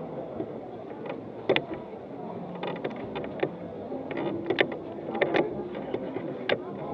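A procession crowd moving on foot through a narrow street: steady shuffling and background noise broken by scattered sharp clicks and knocks.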